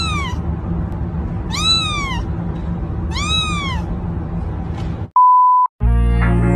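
A kitten meowing three times, each call rising and then falling in pitch, over a steady low background noise. About five seconds in there is a short steady beep tone, and electronic music starts just after it.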